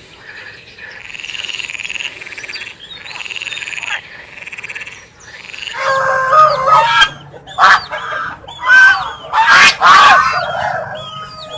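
A frog's trilling calls, each about a second long, repeated about four times. About halfway through, loud, pitch-bending bird calls take over, honking and squawking in quick succession.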